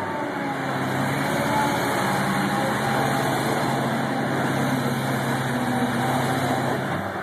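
Kid Tractor eight-wheel-drive amphibious vehicle driving off, its 30 hp Wisconsin engine running steadily under load. Near the end the engine note dips briefly.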